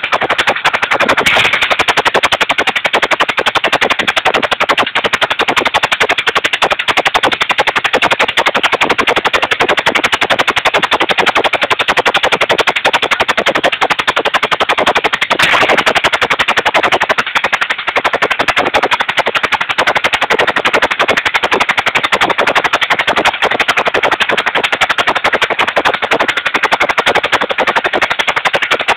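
A 16 hp engine running loud and steady on biogas, its exhaust firing in a rapid, even stream of sharp beats as it drives a generator.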